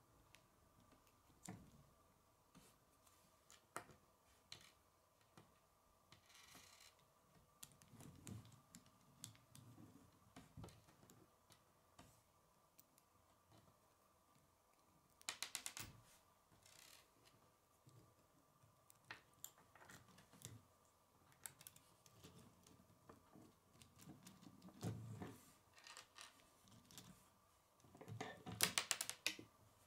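Plastic K'nex rods and connectors clicking and snapping together as they are fitted by hand, in scattered single clicks with quick runs of clicks about halfway through and, loudest, near the end.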